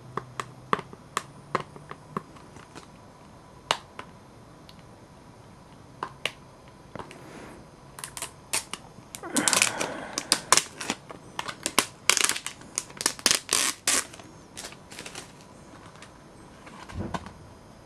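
A plastic DVD case being handled and opened: scattered sharp clicks, then from about halfway a dense run of clicking and crackling plastic, and a few last clicks near the end.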